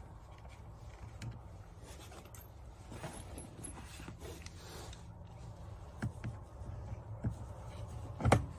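Handling noises of small bolts and hand tools against the rubber pond liner and plastic skimmer faceplate, with a few small clicks and a sharp knock near the end.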